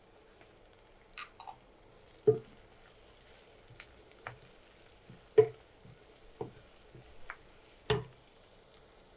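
Wooden spatula stirring onions and ground spices in a frying karahi, knocking and scraping against the pan several times over a faint sizzle of hot oil.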